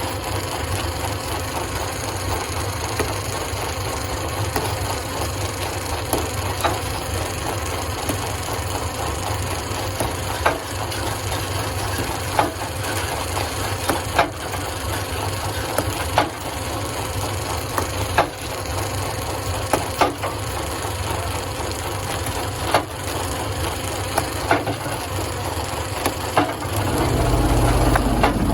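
Stone crusher running and crushing rock, with sharp cracks about every two seconds from the middle onward. A heavier low rumble swells up near the end.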